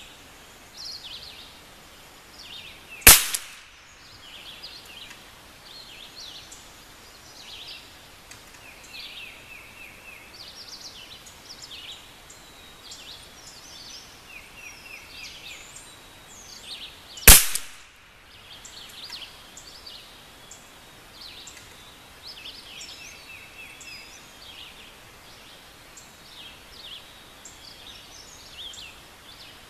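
Two single shots from a Vudoo V22 .22 rimfire bolt-action rifle, about 3 s and 17 s in, each a sharp crack. Birds chirp and trill throughout.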